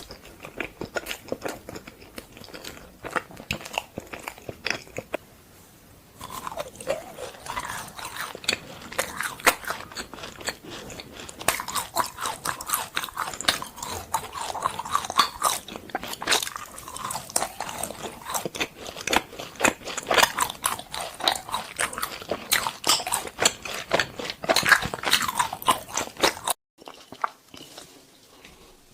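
Close-miked crunching and chewing of frozen fruit, a dense run of sharp, brittle crunches. It stops abruptly near the end.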